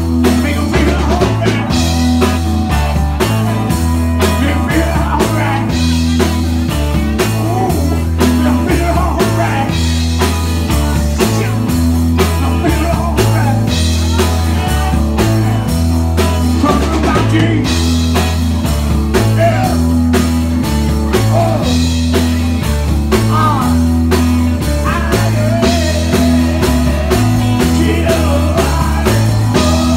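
Live rock band playing: a man singing into a microphone over electric guitar and a drum kit, with a repeating low bass line underneath.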